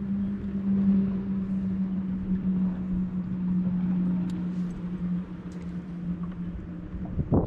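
Boat motor running with a steady hum over wind and water noise; the hum fades out about five or six seconds in. A short thump comes near the end.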